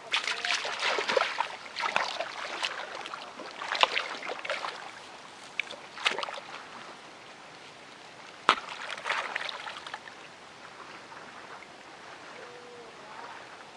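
Hands splashing and sloshing in shallow muddy water while groping through the mud for fish, in irregular bursts with a sharp slap about eight and a half seconds in. The splashing dies away in the last few seconds.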